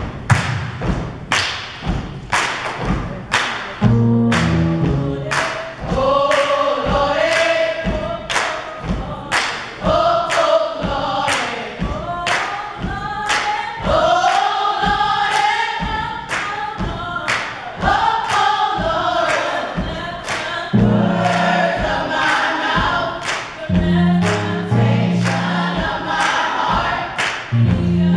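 Gospel choir singing in harmony over a steady beat of hand claps, about two a second. The claps alone keep time at first, and the voices come in about four seconds in.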